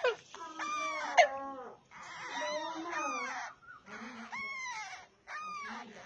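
Alexandrine parakeet chicks begging while being fed: a run of short, repeated cries, each rising then falling in pitch, with brief gaps between them.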